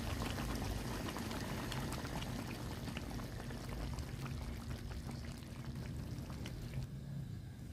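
Goat curry simmering in a wok: soft bubbling with many small pops and crackles, quieter near the end.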